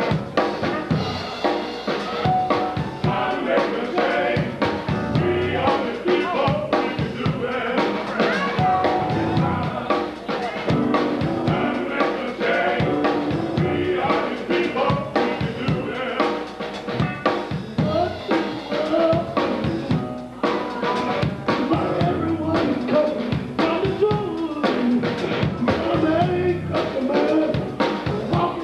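Live gospel music: a group of men singing, a lead voice over the others, backed by a drum kit with steady snare and bass-drum hits.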